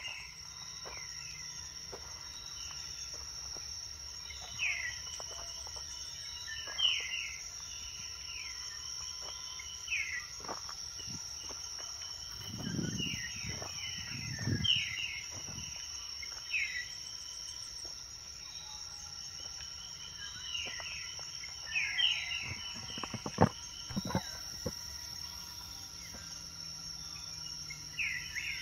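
Forest ambience: a steady high-pitched insect drone, with short descending bird calls repeating every second or two. A few low thumps and clicks come in the middle.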